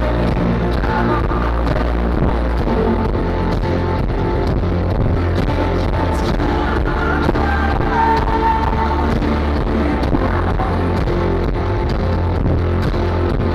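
Live rock band playing through a PA: electric guitars, bass and drums, with a heavy low end.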